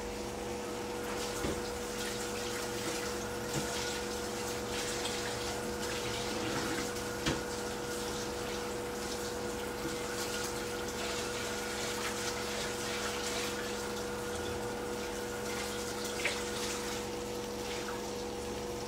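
Pieces of lamb offal sizzling steadily as they fry slowly in a pan, over a steady hum, with a few light clicks.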